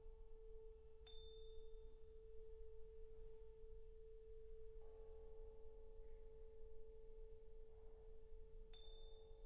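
Very faint, sustained contemporary orchestral music: one steady, pure-sounding pitch held throughout. Fainter higher tones join it about five seconds in. A short high ping sounds about a second in and again near the end.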